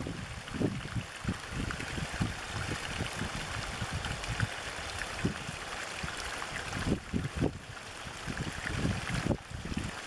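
A small stream of water pouring over a low drop into a shallow pool, rushing and splashing steadily, with uneven low gurgling rumbles.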